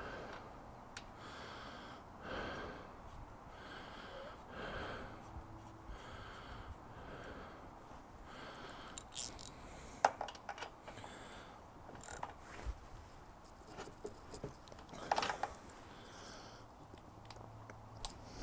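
Quiet hands-on work with soft breathing-like puffs about once a second and a few sharp light clicks and knocks, the loudest a little past halfway.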